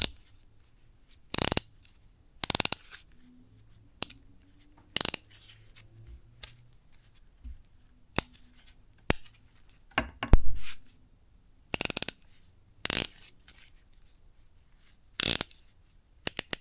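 Ratcheting box wrench (TrueCraft Reversa) being worked back and forth, in about ten short bursts of fast pawl clicks a second or more apart. A few single clicks fall between the bursts, and there is a low knock about ten seconds in.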